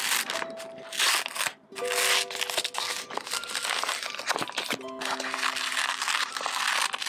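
Crinkly wrapping of a new planner being handled and opened by hand, crackling almost continuously with a short break about a second and a half in. Soft background music with held notes plays underneath.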